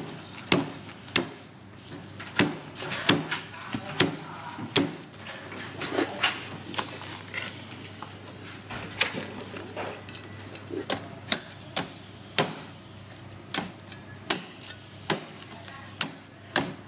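A series of sharp knocks, unevenly spaced at about one a second.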